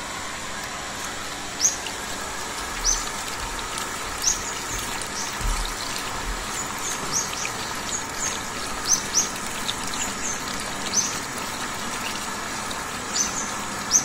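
Water running steadily from a pipe and splashing, with a bird giving short high chirps again and again over it.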